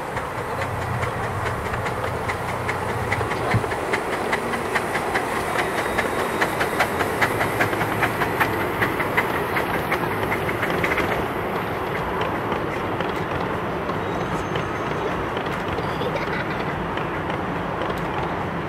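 Passenger train on a 7¼-inch gauge miniature steam railway running past close by: the wheels click sharply and rapidly over the rail joints for several seconds in the middle, then give way to a steadier rolling rumble as the last carriages go by.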